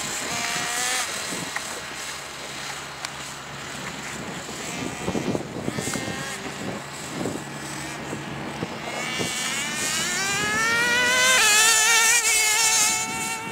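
Traxxas Jato 3.3's small two-stroke nitro engine running at high revs. Its pitch climbs steadily as the truck accelerates on a top-speed run, loudest near the end, then drops away.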